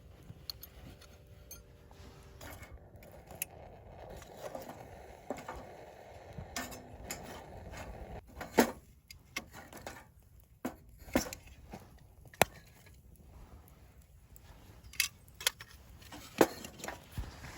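Scattered clinks and knocks of camp gear being handled, with a soft rustling noise for a few seconds from about two seconds in.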